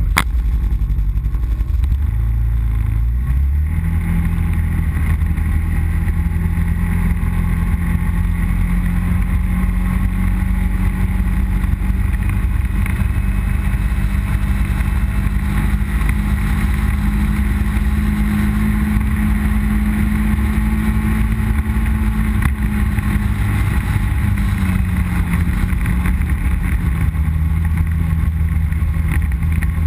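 ATV engine running under way on a gravel trail. It speeds up over the first few seconds, then holds a steady pitch, and eases off a little near the end.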